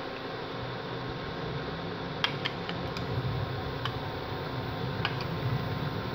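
Metal spoon stirring curry powder into water in a ceramic bowl, the liquid swishing and the spoon clinking against the bowl a handful of times from about two seconds in. A steady fan hum runs underneath.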